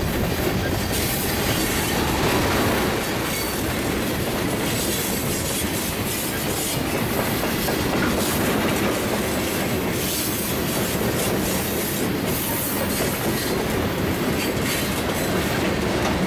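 Freight train tank cars rolling past close by: a steady, loud noise of steel wheels running on the rails.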